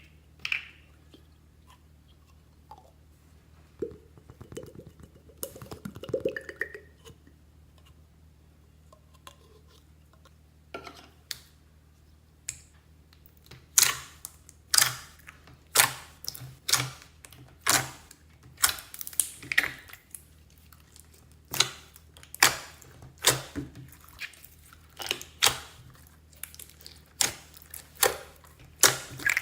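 Slime being played with by hand. A soft squish comes a few seconds in, then from the middle onward a run of sharp popping clicks, about one or two a second.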